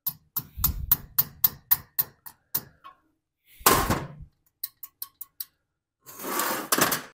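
A small hammer tapping the governor assembly onto its shaft on an 8 hp Tecumseh engine: about ten quick, light metal taps at roughly four a second. This is followed by a short clatter, a few faint ticks and a longer rattle near the end.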